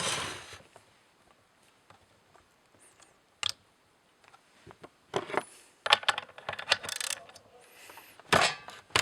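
Scattered metallic clicks, clinks and small rattles from an old chainsaw and its spark plug being handled. Near-quiet at first with a single sharp click, then bunches of clicks from about five seconds in and a louder clatter near the end.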